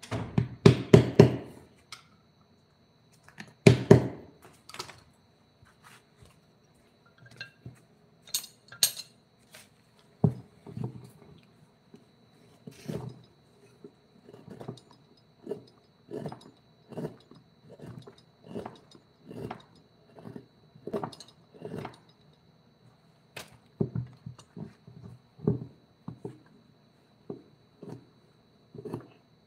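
Repeated knocks of a tool on wood during woodcarving work: a quick flurry at the start, then single knocks about one to two times a second. A faint steady high whine sits beneath.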